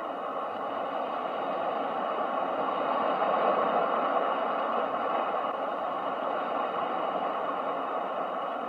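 Ocean waves: a steady rushing wash that slowly swells to a peak about three to four seconds in and then eases back.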